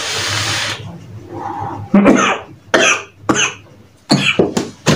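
A breathy hiss of a draw on an e-cigarette for about a second, then several sharp coughs in a row after the big hit of vapour.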